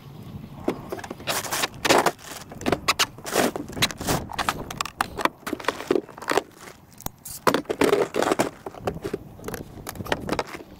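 Irregular close rustling and crackling, a dense run of sharp knocks and scrapes near the microphone.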